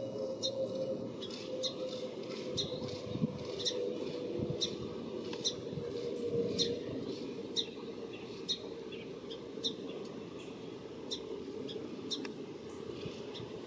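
A small bird chirping over and over, short high chirps about twice a second. Underneath is a steady low rumble, fitting a jet airliner passing high overhead.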